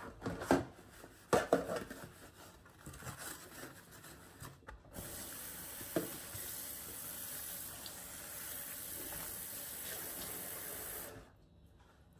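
Knocks and clatters of dishware in a stainless steel kitchen sink, then a lever tap running steadily onto a tray being rinsed for about six seconds, shut off suddenly near the end.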